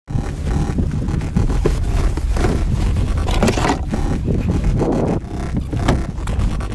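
Wind rumbling on a body-worn action camera's microphone, with irregular scrapes and knocks from gear being handled.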